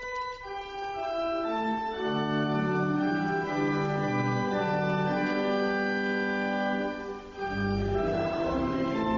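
Church organ playing slow, sustained chords. There is a brief break about seven seconds in, after which deep pedal bass notes come in under the chords.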